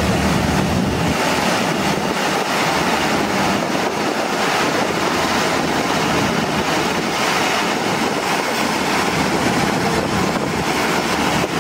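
Channy 930 combine harvester running steadily while cutting standing paddy: its engine and threshing machinery make a constant, dense mechanical noise.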